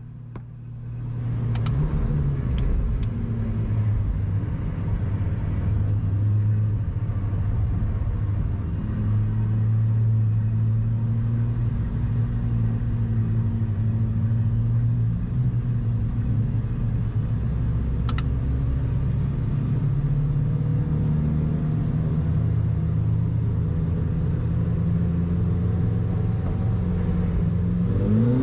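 Ferrari 488 Challenge race car's twin-turbo V8 running at fairly steady low revs, rising in revs near the end.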